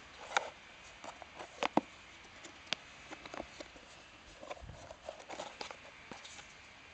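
Clicks, taps and light rustling from hands handling a hard plastic watch case and the cards inside it. The sharpest click comes about half a second in, with a close pair of clicks just before two seconds.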